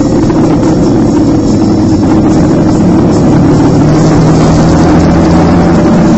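Motorcycle engine running at a steady cruising pace, heard loud and close from a camera mounted on the bike, with rushing noise over it.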